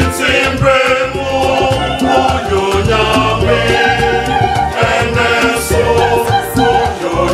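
Youth choir singing a lively highlife-style gospel song in harmony, backed by a band with a strong bass line and a steady drum beat.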